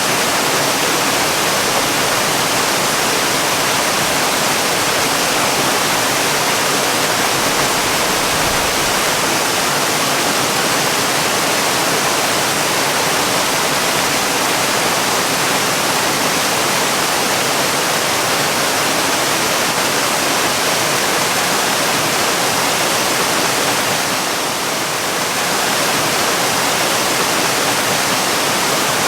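Waterfall: a steady, even rush of falling water, dipping slightly for a moment near the end.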